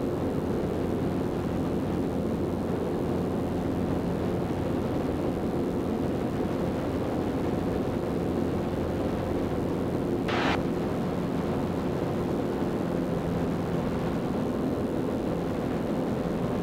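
Zenith CH 750 Cruzer light airplane's engine and propeller droning steadily in the cabin during the climb at about 80% power.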